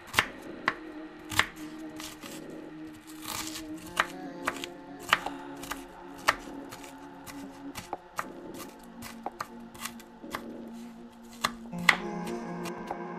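Chef's knife chopping spinach, then green chillies, on a plastic cutting board: sharp knocks at an uneven pace, about one or two a second. Soft background music plays underneath and gets a little louder near the end.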